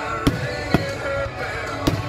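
Fireworks bursting: three sharp bangs, the first two half a second apart and the third near the end, over music playing.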